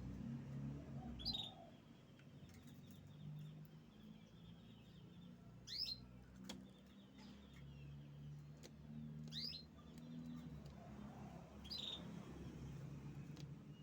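Canary giving four short, sharp chirps a few seconds apart, with faint trilling between them, over a low background hum.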